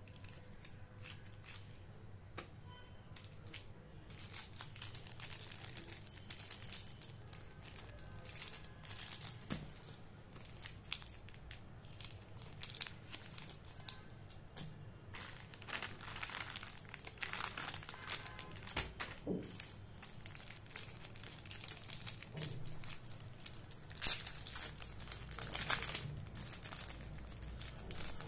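Plastic candy-bar wrappers crinkling and crackling as they are handled, in irregular rustles that grow busier as it goes on. Toward the end a chocolate bar's wrapper is peeled open, with a few louder crackles.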